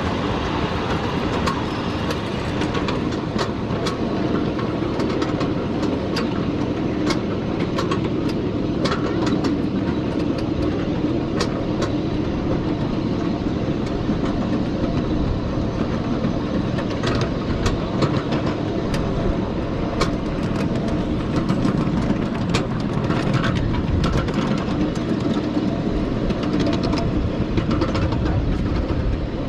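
Ride aboard a 7½-inch gauge miniature railway train: the wheels on the track give a steady rumble, with sharp, irregular clicks and ticks throughout.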